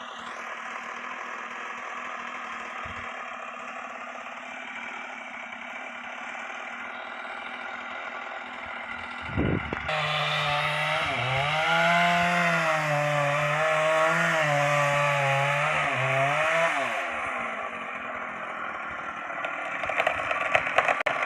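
Chainsaw running at a steady low speed, then, about ten seconds in, opened up to full throttle and cutting under load for about seven seconds, its pitch wavering up and down as the chain bites into the trunk, before dropping back.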